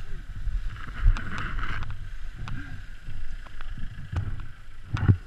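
Rumbling wind on a head-worn action-camera microphone with irregular knocks and clicks of handling as a speed-flying wing and its risers are gathered up, while a car comes close alongside on the lane. The loudest knock comes about five seconds in.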